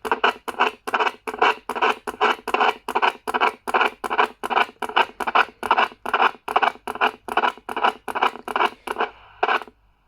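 Static from a Stalker IX CB radio's speaker, chopping on and off about four times a second. It stops about nine seconds in.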